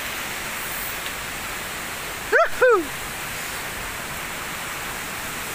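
Steady rush of a waterfall, with two short rising-and-falling calls close together about two and a half seconds in.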